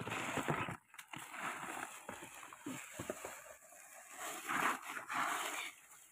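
Hands scooping a crumbly mix of soil and crushed dry leaves into plastic bags, the plastic rustling and the dry leaves crackling in several bursts, with small gritty scrapes between them.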